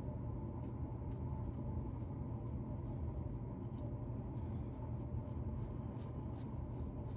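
Fingernails scratching at dandruff flakes in a beard: quick, irregular faint scratches over a steady low hum.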